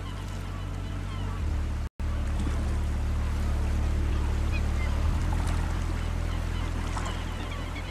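River rapids and a waterfall rushing steadily, over a low steady drone. The sound drops out completely for an instant about two seconds in, and faint high bird calls come through in the later seconds.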